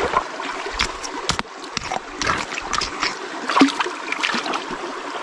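Shallow river water running, with repeated short splashes and knocks.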